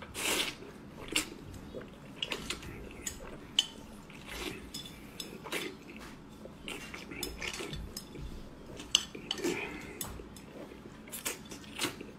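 Chopsticks clicking and scraping against a ceramic plate held at the mouth, with short slurps as spicy instant noodles are shovelled in, at an irregular pace.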